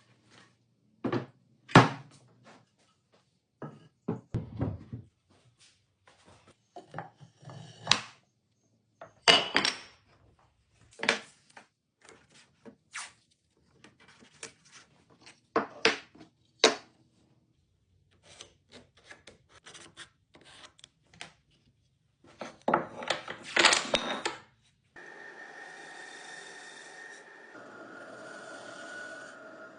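Irregular sharp knocks and clacks of hard objects, like wood being handled or tapped, single and in quick clusters with a dense flurry near the end. They give way to a steady hum with a few held tones for the last few seconds.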